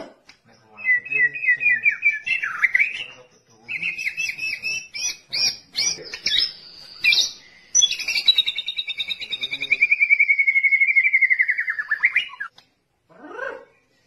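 White-rumped shama (murai batu) singing: loud, rapid trilled phrases with higher notes over them, then a long fast trill that slowly drops in pitch before stopping about twelve seconds in.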